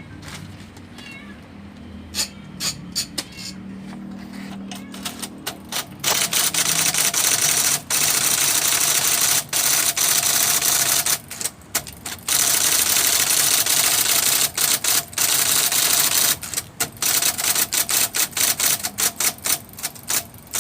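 IBM Selectric III electric typewriter being test-typed after servicing: motor humming with a few single keystrokes, then from about six seconds in a fast, continuous clatter of typing, broken by a few short pauses.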